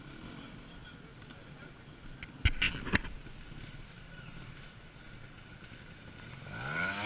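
Trials motorcycle engine running low in the background, broken by two sharp knocks about half a second apart midway through. Near the end the engine revs up, its pitch climbing.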